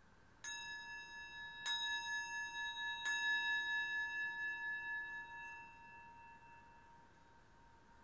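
Metal singing bowl struck three times with a wooden striker, about a second apart, each strike adding to one bright, wavering ring that fades away over the next few seconds.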